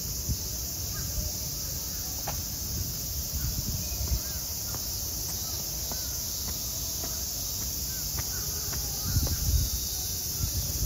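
Steady high-pitched drone of a summer cicada chorus, with faint short chirps scattered through it and a low rumble underneath.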